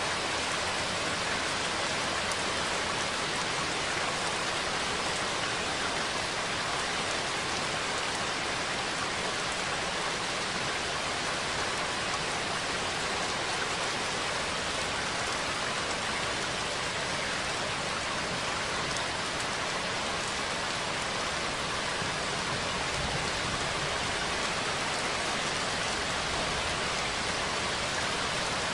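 Steady rain falling: an even, unbroken hiss with no thunder or separate drops standing out.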